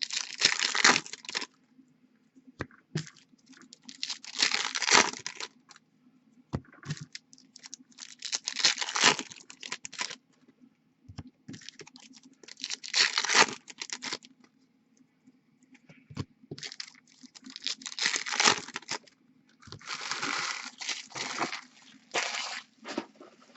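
Trading card pack wrappers being torn open, a tearing and crinkling noise that comes in six bursts, roughly one every four seconds.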